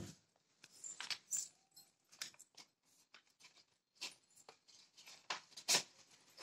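Paper cutouts being handled: scattered rustles and light clicks, with a soft thump at the start and a sharper tap near the end.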